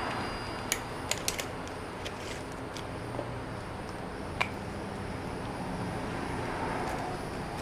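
A few light, sharp clicks and knocks, most of them in a quick cluster about a second in and one more near the middle, over a steady low hum.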